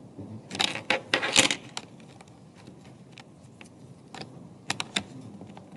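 Scattered clicks, knocks and light rattles of small hard objects being handled, thickest between about half a second and a second and a half in, with a few more sharp clicks near the end.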